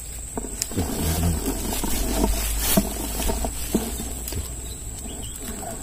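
Mesh keep net full of fish being handled on grassy ground: rustling with a few scattered soft knocks, and wind rumbling on the microphone for a couple of seconds.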